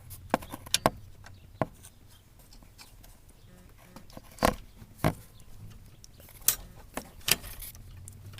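Metal parts inside a Ford pickup's steering column clicking and knocking irregularly as a rod is worked by hand into its hole: about ten sharp clicks scattered through, over a low hum.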